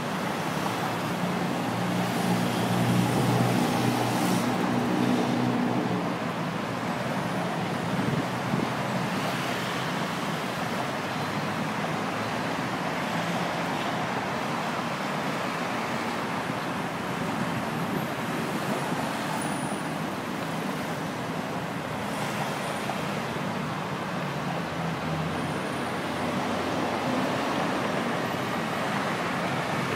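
Dense rush-hour city traffic: a steady wash of many engines and tyres on a busy multi-lane road, with one engine's low hum standing out over it for the first six seconds or so.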